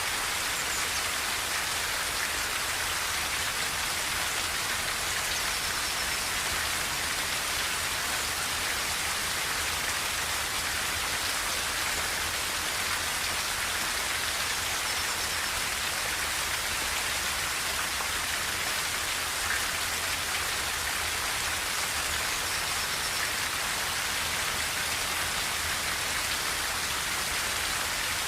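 Steady rain pattering on a tin roof: an even, unbroken hiss with no thunder.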